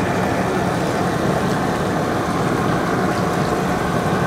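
Gas burner running steadily under a large aluminium stockpot of seasoned crawfish-boil water at a rolling boil: a constant rushing noise that does not change.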